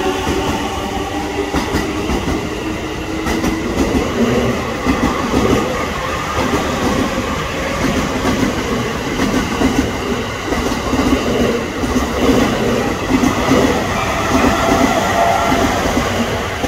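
JR East E233-3000 and E231 series electric commuter train accelerating out of the station as its cars roll past. A traction-motor whine rises in pitch at the start and again near the end, over a steady rumble with rhythmic clacking of wheels over rail joints.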